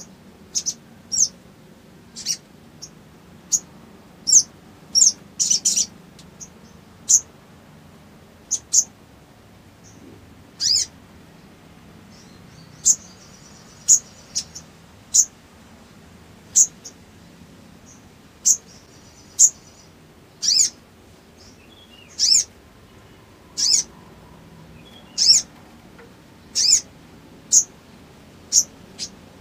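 Caged male sunbird (sogok ontong) calling: short, sharp, high chirps, singly or in quick pairs, about once a second, with a soft twitter between them now and then.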